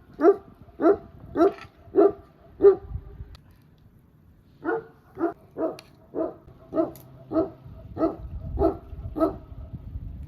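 Dog barking repeatedly at a steady pace of about two barks a second: five barks, a pause of about two seconds, then about nine more.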